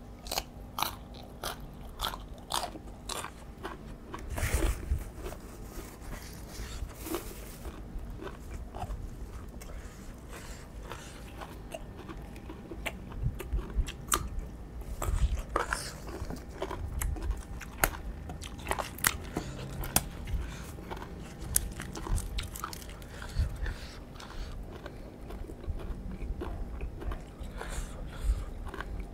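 A person chewing and crunching mouthfuls of raw vegetables and spicy raw-shrimp salad, many short crisp crunches.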